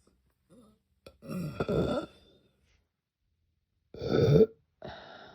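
A bloated woman burping twice: a long, drawn-out burp about a second in, then a shorter, louder one near the end, followed by a softer breathy exhale.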